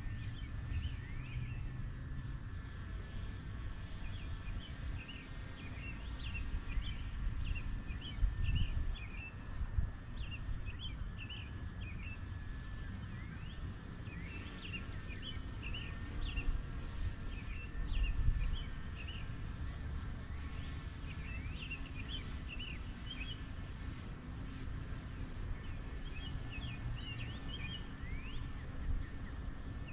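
Birds calling in repeated clusters of short, high chirps, over a steady low rumble of outdoor background noise.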